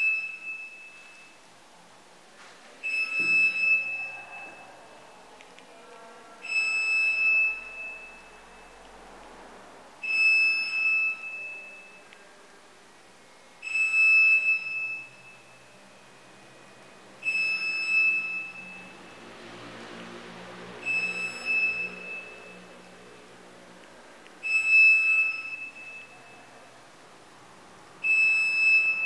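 Electronic beeper sounding a steady high-pitched tone for about a second and a half, repeating about every three and a half seconds, eight or nine times.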